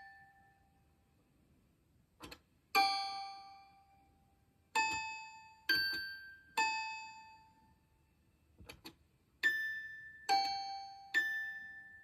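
Tiny toy piano played one note at a time, seven high, bell-like notes picked out slowly and irregularly, each ringing on and fading before the next. Two faint clicks fall in the longer pauses.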